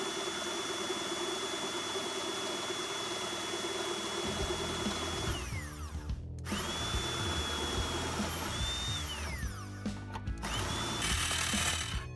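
Hand-held electric drill boring into thin sheet steel. Its motor whine holds steady, then winds down about five seconds in, runs again for a couple of seconds, and gives one more short burst near the end. Faint background music comes in under it partway through.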